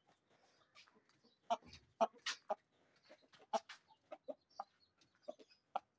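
Chickens clucking: a scatter of short, sharp clucks at irregular intervals.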